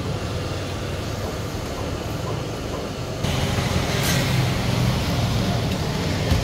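Steady low rumble of street-side background noise, a little louder from about three seconds in, with one short clink about four seconds in as a ladle is worked in a large steel pot of broth.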